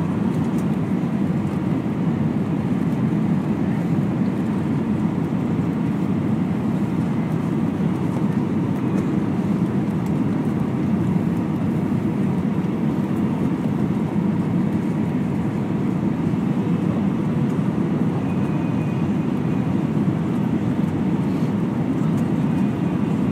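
Steady cabin noise inside an Airbus A320 airliner: the low rumble of its engines and the airflow around the fuselage, even throughout with no sudden changes.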